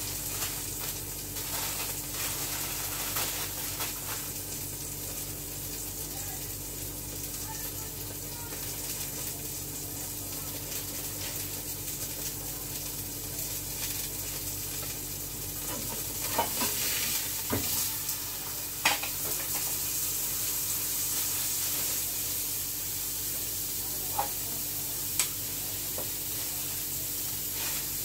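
A steady sizzling hiss over a low hum, with a handful of sharp crinkles and clicks of plastic wrap being handled as burgers are wrapped, bunched in the middle and twice near the end.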